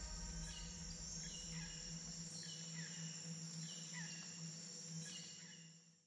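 Faint tail of an outro soundtrack with jungle-like ambience: a low steady hum and high steady tones under short, falling, insect-like chirps that recur about once a second, fading out just before the end.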